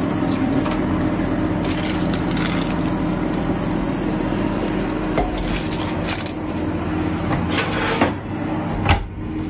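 Steady whirr of a kitchen fan with a low hum. Near the end come two sharp knocks, about a second apart, as the hot cake tin is set down on the gas hob's metal pan supports.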